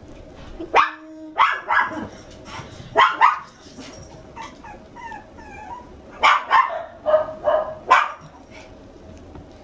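Toy poodle puppy giving short, high-pitched yips and barks in play: a few in the first three seconds and a quick run of them about six to eight seconds in, with fainter squeaky whines in between.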